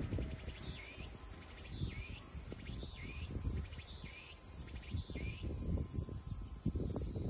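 A bird calling repeatedly: a short, sharply falling note about once a second, stopping about five seconds in. Low rumbling noise runs underneath.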